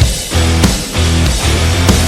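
Hard rock song recording: a full band with electric guitars and drums playing in a stop-start rhythm that dips about every two-thirds of a second.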